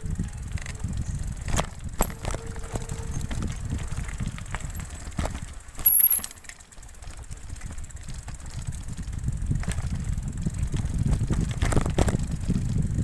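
Bicycle riding over a rough dirt trail: low rumble of the tyres and wind on the handlebar-mounted phone, with frequent knocks and rattles from bumps. A sharp loud knock comes about six seconds in, and the rumble grows louder near the end.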